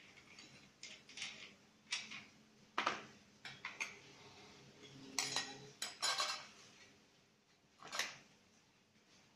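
Metal parts of an angle grinder and a small saw blade clinking and clacking as they are handled: short, irregular clinks, busiest between about five and six and a half seconds in, with one more near the end.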